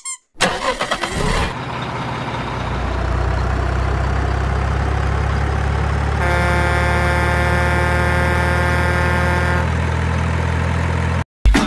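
Truck engine sound effect: the engine cranks and catches, then runs with a steady low hum. A long, steady truck horn blast sounds over it from about the middle for some three seconds, and everything cuts off abruptly near the end.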